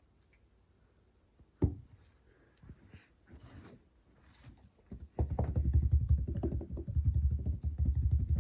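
A cat pouncing on and batting a cat toy: a sharp knock about a second and a half in, a few scattered scuffs, then from about five seconds a loud, continuous rattling scuffle as the cat grapples with the toy.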